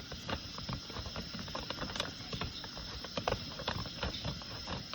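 Scissors snipping through a large homemade blind bag, a run of short irregular snips and crackles; the bag is big and hard to cut.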